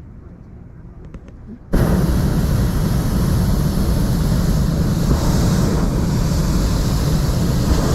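Hot-air balloon's propane burner firing: a loud, steady roar that starts abruptly about two seconds in and holds without a break.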